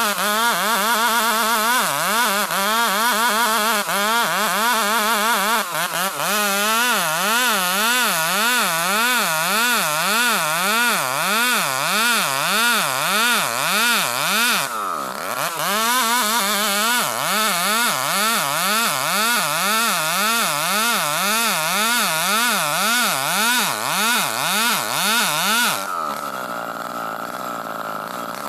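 Chainsaw ripping lengthwise along a Bornean ironwood (ulin) log. The engine runs at high revs under load, its pitch wavering up and down about twice a second as the bar works through the cut, with one brief drop and recovery about halfway through; near the end it turns quieter and steadier.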